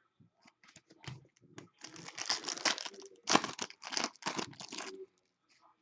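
Trading card pack wrapper and cards being handled: a few light clicks, then a run of short crinkling, rustling bursts lasting about three seconds.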